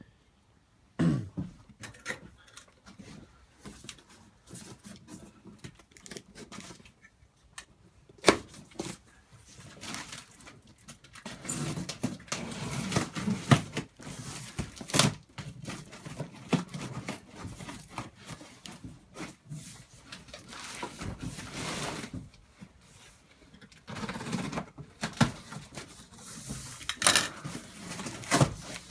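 Cardboard packaging of a wood lathe being opened and unpacked by hand: irregular rustling, scraping and tearing with scattered knocks and clicks, busier in two stretches in the middle and near the end.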